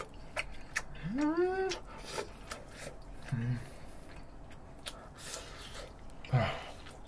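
Close-up eating sounds: chewing and mouth smacks with light clicks. About a second in comes a hummed "mmm" that rises and falls in pitch, followed later by two short low grunts.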